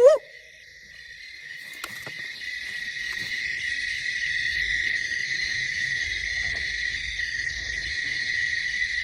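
Night insects trill in a steady chorus, a constant high drone with a pulsing layer above it. The tail of a long whooping "woo" call cuts off right at the start, and a faint click is heard about two seconds in.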